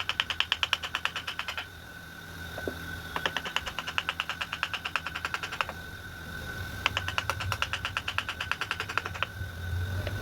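Rapid, even tapping on a wood-carving chisel, about ten taps a second, in three runs of two to three seconds each with short pauses between. A steady high thin whine and a low hum run underneath.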